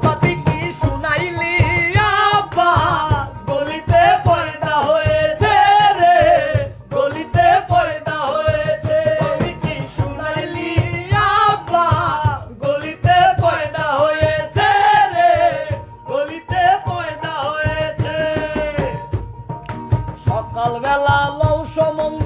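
Men singing a Bengali folk song, the lead voice loud and wavering, over fast, continuous hand strokes on a hand drum.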